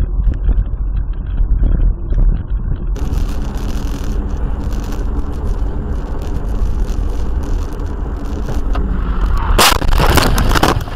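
Road and engine noise inside a moving car, recorded by a dash cam, with a short cut about three seconds in. Near the end comes a loud noise of about a second that covers all frequencies: a collision heard from inside the car.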